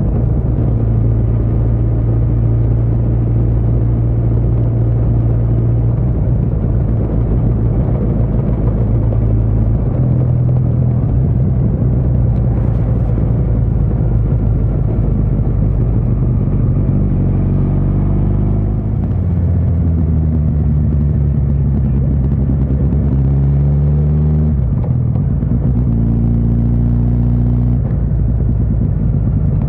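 Suzuki GSX1300R Hayabusa's inline-four engine running steadily under way, with a steady rumble. From about two-thirds through, the engine pitch rises, drops, then shifts a couple more times as the revs change.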